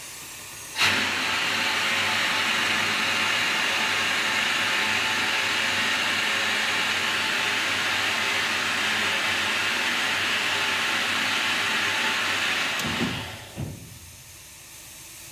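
Compressed air hissing steadily through the pneumatic control valve of a 1934 Russell snow plow as its air-operated flanger is worked. The hiss starts abruptly about a second in, holds for about twelve seconds, then dies away near the end with a low knock or two. The flanger is drawing down the plow's air pressure.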